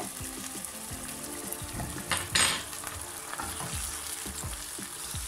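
Tomato and onion sauce sizzling in a nonstick frying pan as it is stirred with a utensil, which knocks lightly against the pan; a louder scrape about two seconds in.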